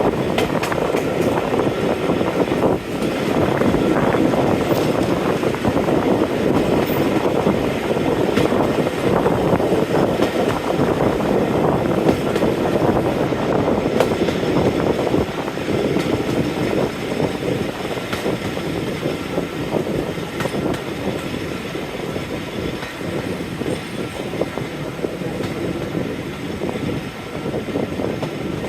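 A diesel-hauled train, Class 45 locomotive 45108 with its carriages, running along the line: a steady rumble of wheels on rail with clicking over the joints, getting a little quieter in the last part.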